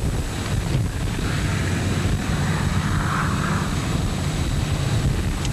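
Storm wind buffeting the microphone in a steady low rumble, with a soft rushing hiss that swells about a second in and fades again past the middle.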